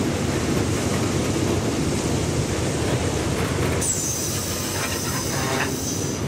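Loaded railway ballast hopper wagons rolling slowly past with a steady low rumble. Nearly four seconds in, a high metallic wheel squeal starts suddenly, dips a little in pitch and holds for about two seconds.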